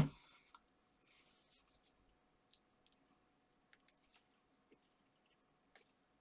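A single sharp knock right at the start, then faint scattered small clicks and light rustling as card strips and craft tools are handled on a work surface.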